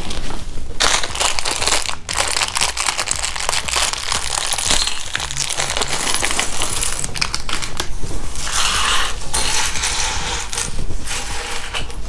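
Clear plastic bag crinkling as it is opened and handled, with tiny plastic building bricks (Daiso Petit Block) clattering out onto a table in many small clicks.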